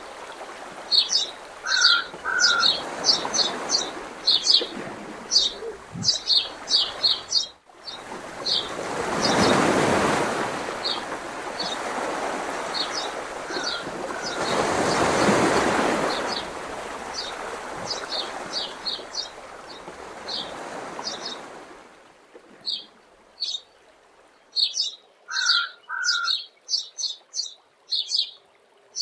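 Small birds chirping and twittering over the wash of waves, which swell twice; about three quarters of the way through the waves stop and only the birdsong remains.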